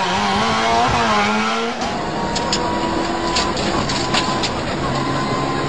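Rally car engine revving hard, its pitch rising and falling as the car drives past; after about two seconds the sound switches to inside a rally car, the engine running under load with a rough, steady drone and several sharp knocks.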